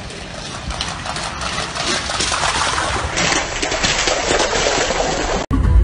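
A dog splashing as it runs through shallow floodwater, a rough rushing noise that grows louder as it comes closer.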